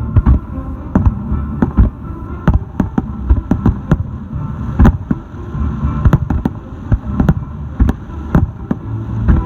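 Fireworks finale: shells bursting in a rapid, irregular string of sharp bangs, several a second, over a continuous low rumble.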